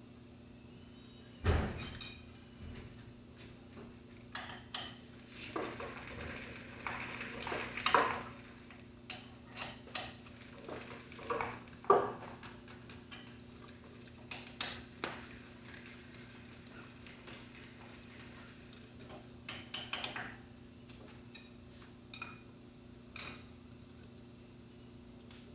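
Irregular clinking, knocking and scraping of hand tools and metal bicycle parts being handled during assembly of a Schwinn Sidewinder mountain bike, with a few sharper knocks, the loudest about eight and twelve seconds in.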